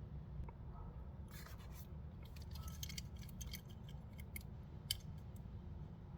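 Scissors snipping, with plastic packaging clicking and scraping, as a toy car's blister pack is cut open: irregular sharp clicks and short scratchy bits, busiest in the middle, over a low steady hum.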